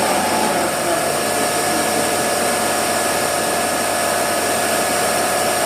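Protima Economic ASZ-3000 automatic rug washing machine running: a steady motor whine with several even tones over a continuous rushing noise.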